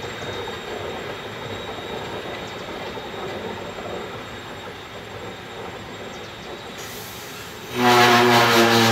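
Metre-gauge freight train of ballast hopper wagons at a station, a steady rail rumble, then a much louder pitched sound with strong hiss starting suddenly near the end.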